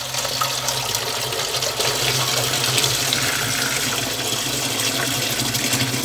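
Tap water running in a steady stream into a metal cooking pot in a sink, filling it.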